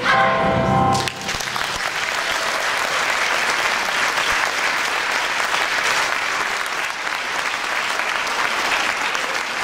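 The last chord of the music sounds for about a second and cuts off, then an audience applauds steadily.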